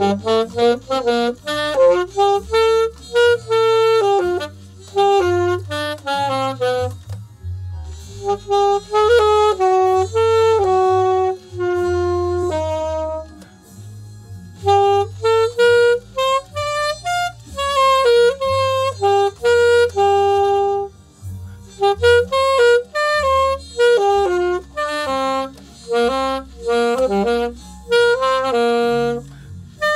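Alto saxophone playing a melodic line in phrases with short breaths between them, over a low bass accompaniment that keeps going through the pauses.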